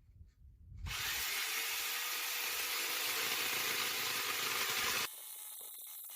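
Makita electric jigsaw cutting through chipboard. It starts about a second in, runs steadily for about four seconds, then stops.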